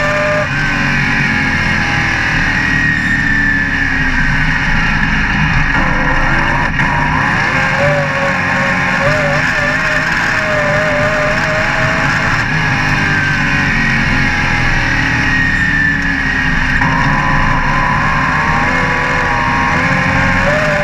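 Open-class dirt-track race car's engine heard from inside the cockpit at racing speed. Its pitch falls twice as the car slows for the turns and climbs again as it accelerates out, about one lap apart.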